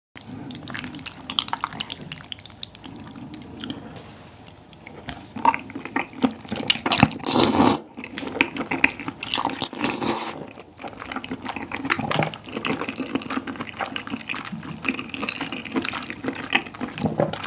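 Close-up mukbang eating sounds: a person slurping and chewing spicy tteokbokki with sauce-soaked glass noodles, a steady run of small smacks and clicks, with two louder, longer slurps about seven and ten seconds in.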